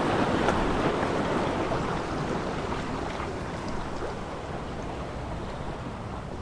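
Shallow sea water washing and foaming over a rocky reef flat, a steady rushing noise that slowly gets quieter.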